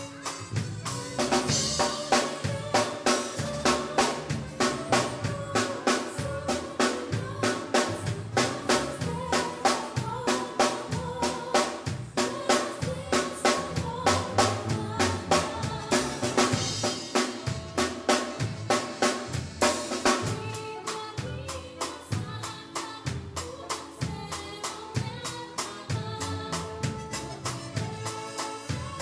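Live band playing an upbeat number with the drum kit to the fore: a steady, fast beat on snare and bass drum, with cymbal crashes about a second and a half in and again around the middle. Keyboard, guitar and bass notes are held above the drums.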